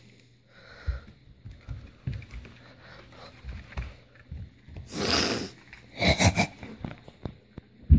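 Plastic trigger spray bottle spritzing: one hiss about five seconds in, then a few shorter sprays about a second later, among low knocks from handling.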